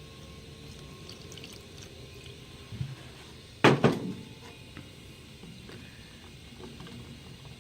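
Paint reducer being poured into a small cup of paint, a faint trickle of liquid with light clicks of handling, and one short sharp knock a little before halfway through.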